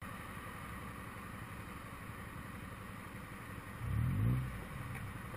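Motorcycle engine running low and steady, with a brief rise in engine speed about four seconds in.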